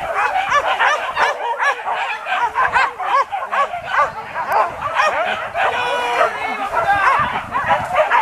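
A pack of hunting dogs yelping and baying, many high calls overlapping several times a second.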